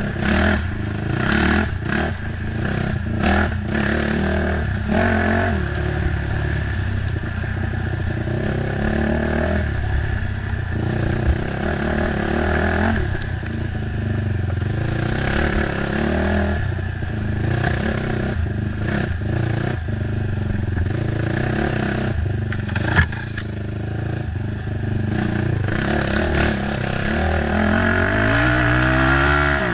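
Race ATV engine running hard at changing revs, with repeated sharp knocks and clatter throughout, and a rising rev near the end.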